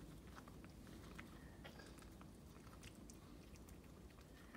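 Near silence with faint, scattered wet smacking clicks from a whelping Maltese and her newborn puppy: mouth sounds of licking and suckling.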